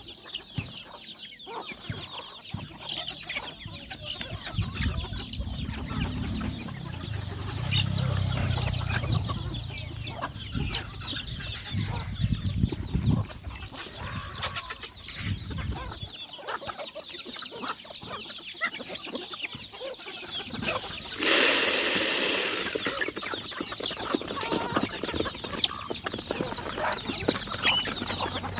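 A flock of free-range native chickens clucking, with chicks peeping, as they gather to feed. About two-thirds of the way in, a burst of noise lasting about two seconds is the loudest sound.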